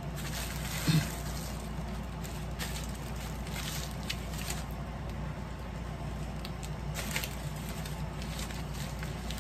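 Plastic wrapping crinkling and tearing in short rustles as it is pulled off a fishing rod by hand, with a thump about a second in, over a steady low hum.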